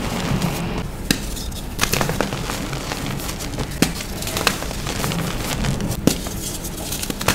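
Powdery dyed gym chalk crumbling and crunching in the hands: a dense dry crackle, with sharp cracks a few times as a reformed chalk block is pressed and broken.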